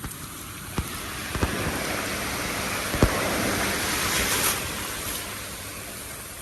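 Ocean surf: a wave's wash swells, is loudest about four seconds in, then fades. A few short sharp thumps come in the first half.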